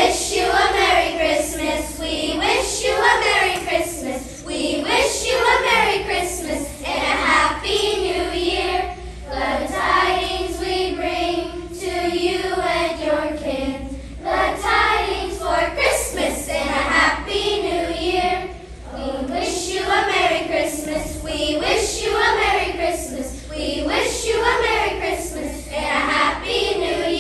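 Elementary school children's choir singing a song, many young voices together.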